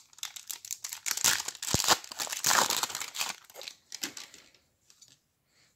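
A sealed pack of 1991-92 basketball trading cards torn open by hand, its wrapper crinkling and tearing in several loud bursts over the first three seconds or so. It then fades to a few faint rustles as the cards are taken out.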